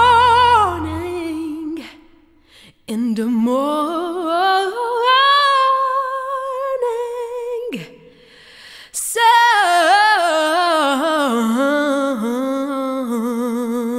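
A solo voice singing long wordless notes with vibrato, with little or no accompaniment heard. The line breaks off briefly twice.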